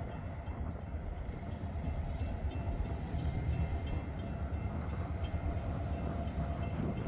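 Low rumble of an approaching freight train, with a railroad crossing bell dinging faintly and steadily over it.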